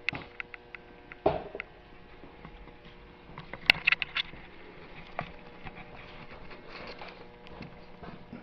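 Scattered light clicks and taps, with a dull thump about a second in and a quick cluster of sharper clicks about four seconds in, over a faint steady hum.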